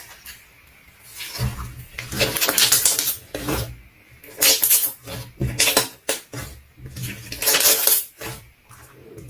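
Slime being squeezed and kneaded by hand, with sticky crackling and squelching in several bursts and short pauses between.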